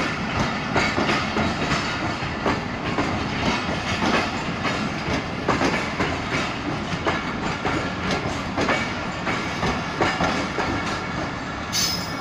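Passenger train coaches rolling past, their wheels clicking steadily over the rail joints. A brief high hiss comes just before the end.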